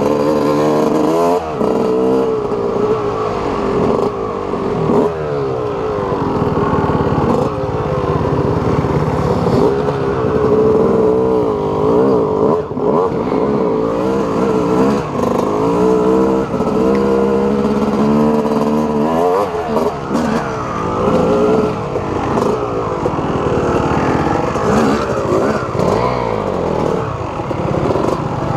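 Yamaha YZ250 two-stroke dirt bike engine ridden under load, its pitch climbing and dropping again and again as the rider accelerates, shifts and eases off, with clattering from the loose gravel track.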